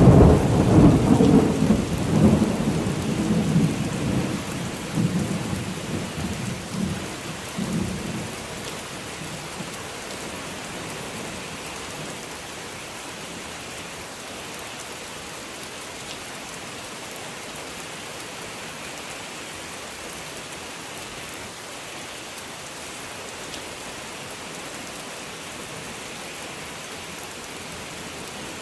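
A thunderclap that breaks right at the start and rumbles away over about eight seconds, over steady rain falling on a surface, which then carries on alone.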